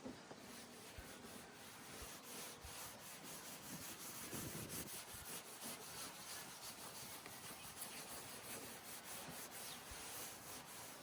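A cloth rubbing G3 cutting compound into a plastic car headlight lens by hand: faint, quick scrubbing strokes of abrasive paste on plastic.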